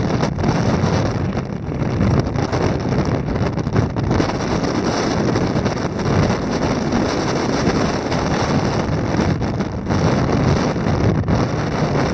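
Storm-force wind of nearly 30 metres a second blasting against the microphone: a loud, continuous rush of wind noise that surges and eases in gusts.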